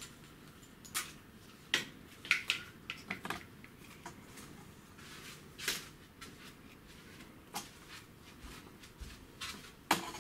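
Horizontal venetian blind being handled and hung back up: irregular clacks and clicks of the slats and top rail knocking together, about a dozen sharp knocks spread out at uneven intervals.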